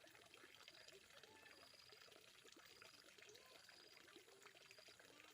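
Faint running or pouring water, steady throughout, with short rising-and-falling chirps scattered over it.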